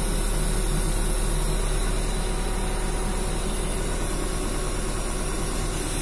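Hyundai backhoe loader's diesel engine running steadily, heard from inside the operator's cab.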